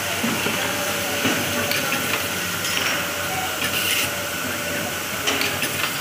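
Cable-making machinery running with a steady hiss and hum, and short hissing bursts of compressed air, as from pneumatic cylinders, about once a second.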